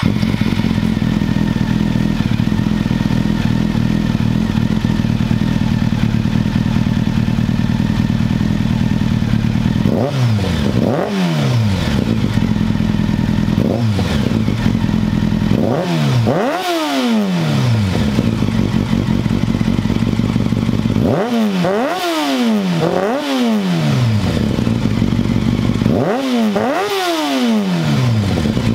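Honda CBR600 F4i inline-four motorcycle engine idling steadily just after starting, then revved in quick throttle blips through the second half, each climbing in pitch and dropping back to idle, several in pairs and threes.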